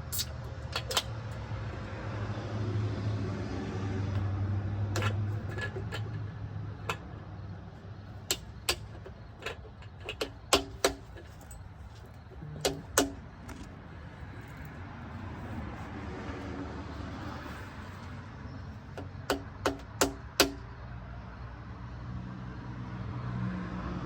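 Scattered sharp metallic clinks and taps of hand tools and engine parts being handled, in small clusters, over a steady low hum.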